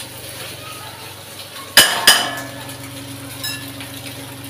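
Spatula stirring and clinking against a frying pan of soya chilli, with two sharp clanks a fraction of a second apart about two seconds in. A steady low hum runs underneath.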